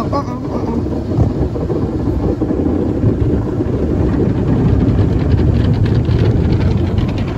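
An automatic car wash working over the car, heard from inside the cabin: a loud, steady rush of water and wash brushes on the glass and body. A quick patter joins in about halfway through.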